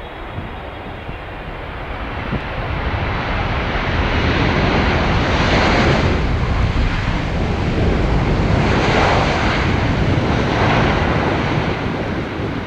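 Jet engine noise from an arriving Emirates Boeing 777-300ER passing by, with its GE90 turbofans. The sound builds over the first few seconds, holds loud through the middle, and eases a little near the end.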